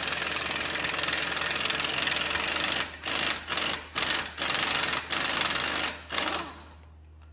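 Impact wrench with a 32 mm socket hammering the front axle nut loose on a 2006 Ford Explorer. It runs in one continuous stretch of about three seconds, then in a string of short bursts, and stops shortly before the end.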